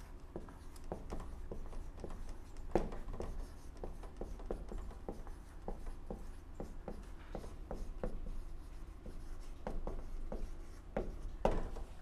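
Dry-erase marker writing on a whiteboard: an irregular run of short strokes and taps as words are written out.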